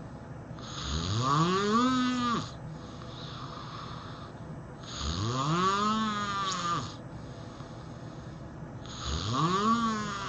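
A person snoring, three long snores about four seconds apart, each a rough pitched tone that rises and then drops away, with a soft hiss between them.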